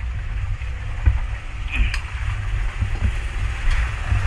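Steady low rumble aboard a wooden outrigger fishing boat at sea, with a few faint knocks scattered through it.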